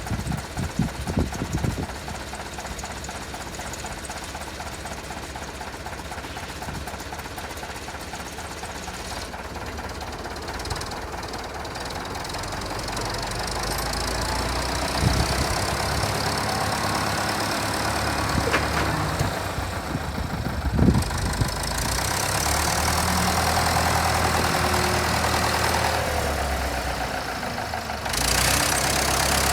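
Tractor engine running, its level building and then easing, with a few short knocks about halfway through.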